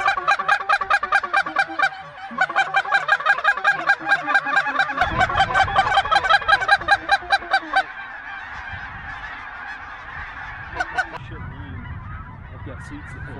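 Snow geese honking: a fast, even run of loud, repeated honks for about eight seconds, then a softer, blurred chorus of a large flock.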